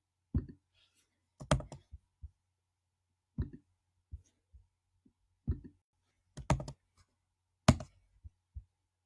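Scattered short clicks and taps, about six over several seconds with silence between, like fingers on a keyboard or device being handled at the microphone.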